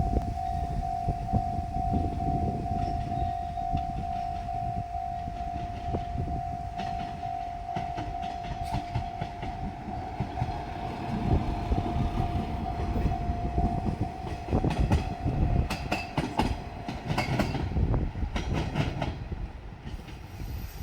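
A level crossing alarm rings with a steady repeating tone and stops about 14 seconds in. Meanwhile a JR Shikoku diesel railcar train rumbles past, its wheels clacking over the rail joints.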